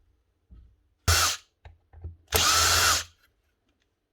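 Cordless power drill-driver running in two short bursts, a brief one about a second in and a longer one of about two-thirds of a second, its motor spinning up and winding down each time, most likely driving out screws holding the planer's motor.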